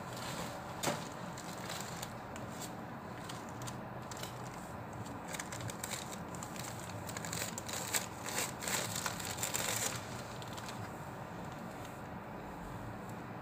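Tissue paper crinkling and crackling as it is handled and pulled away from a folded T-shirt: a short burst about a second in, then a longer stretch of crackling from about five to ten seconds in, over a steady background hiss.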